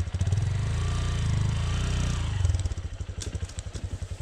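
Dirt bike engine just after starting: it runs a little faster and louder for the first couple of seconds, then drops back to a steady idle with distinct, evenly spaced firing pulses.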